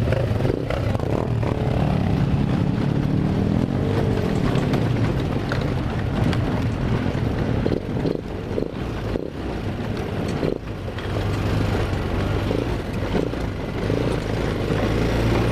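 Four-wheeler ATV engine running steadily while riding a rough trail, with a few sharp knocks from the bumpy ground; the engine eases off for a moment around the middle, then picks up again.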